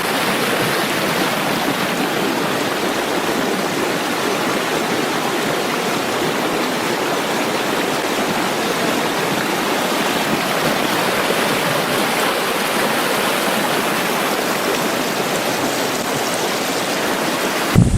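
Rushing stream water running steadily over rocks. It cuts off abruptly just before the end.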